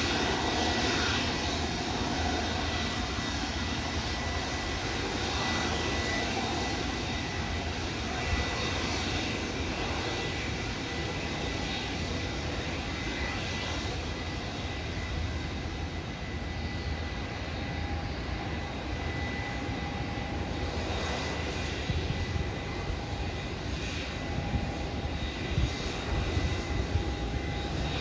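Jet engines of an Airbus A320 airliner running with a steady whine as the aircraft is pushed back by a tug.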